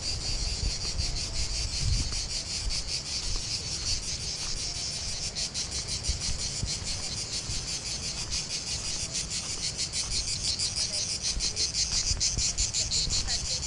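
Dense chorus of insects chirring steadily, a high, rapid pulsing with no breaks.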